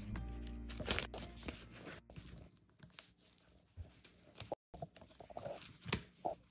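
Scattered crunching and clicking handling sounds, with background music fading out over the first two seconds.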